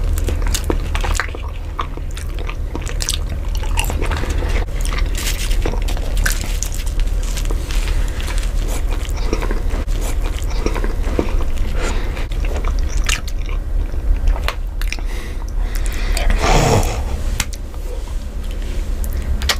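Close-miked chewing and biting of a fast-food burger and fries, full of small mouth clicks and smacks over a steady low hum. Shortly before the end there is a brief sound that falls steeply in pitch.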